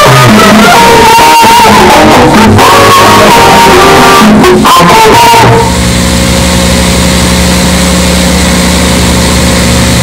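Music of a TV station ident jingle: a moving melody for about the first half, then one steady held tone that cuts off near the end.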